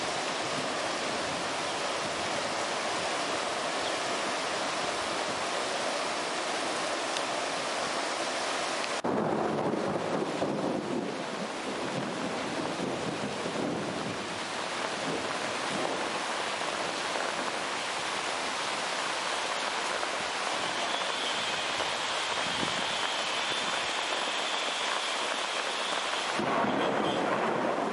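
Steady rushing of wind and small sea waves, with no clear engine or other distinct sound in it. The noise changes abruptly about nine seconds in and again shortly before the end.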